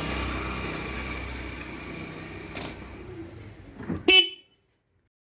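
A steady sound with tones in it fades over about four seconds, then a motorcycle's electric horn gives one short, loud beep about four seconds in.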